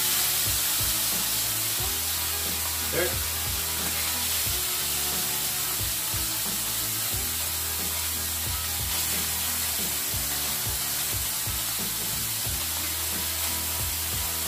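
Beef liver sizzling steadily on a preheated iron plow-disc griddle over the barbecue fire, a dense even hiss of meat frying on very hot metal.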